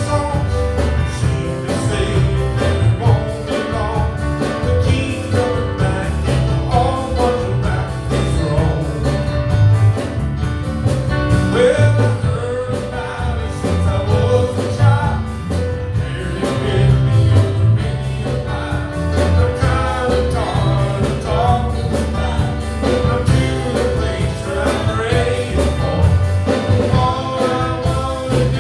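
Gospel song sung with instrumental accompaniment and a steady beat.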